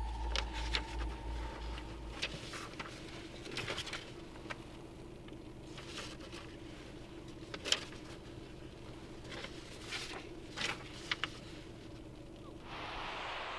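Paper rustling and crackling in short, uneven bursts as sheets and photographs in a folder are handled and turned, over a faint steady hum. A low pulsing fades out in the first two seconds, and a steady hiss takes over near the end.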